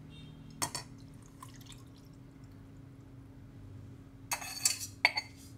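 Soy sauce mixture faintly trickling and dripping from a stainless saucepan through a fine mesh strainer, straining out the bonito flakes, with a light tap a little under a second in. From about four seconds in, chopsticks clink and scrape against the saucepan as they press the soaked flakes.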